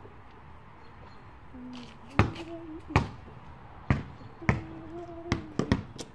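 Basketball bouncing on a concrete driveway: about seven sharp bounces at uneven spacing, starting about two seconds in.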